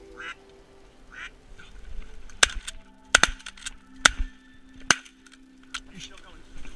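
Ducks quacking, then several sharp shotgun shots about a second apart, two of them almost together.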